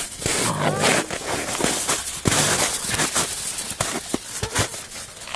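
Snow crunching and crackling under small paws and feet, a dense run of short crunches and clicks.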